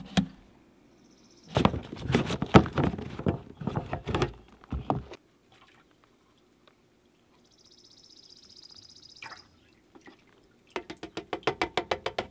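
Roundup herbicide concentrate poured from a foam cup into a spray tank's fill opening, a faint trickling hiss about two-thirds of the way through. Before it comes a cluster of knocks and clatter from handling the cup and tank, and near the end a quick run of clicks.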